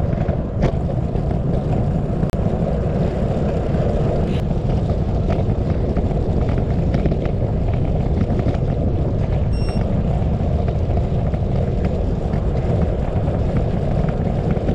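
Steady low wind rush buffeting the microphone of a moving bicycle, along with tyre rumble on the trail. A brief high chirp sounds about ten seconds in.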